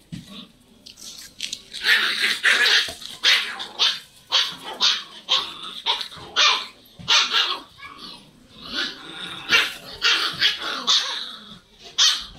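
A litter of desi puppies play-fighting, giving short high-pitched barks and yips over and over in quick runs.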